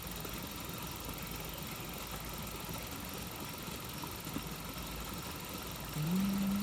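Pondless waterfall running: water pouring over the rocks in a steady rush, the flow now held on top of the rocks by fresh waterfall foam, giving a stronger, fuller sound. Near the end a low pitched sound cuts in, rising briefly and then holding.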